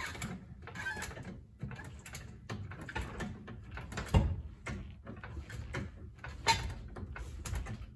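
Car jack being pumped by its handle to lift the rear axle, a run of clunks and clicks.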